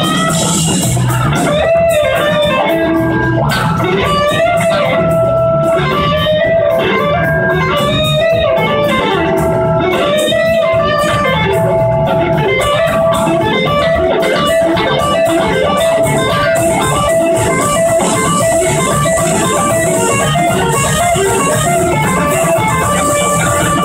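A live blues-rock band in an instrumental passage: electric guitars over bass and drums. The lead guitar line glides up and down between notes, and moves into a quicker run of notes in the second half.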